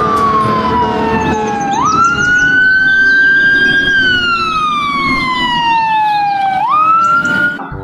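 Fire-engine siren wailing, loud, in slow cycles: the pitch sinks gradually, jumps back up quickly, holds, then sinks again. It cuts off near the end.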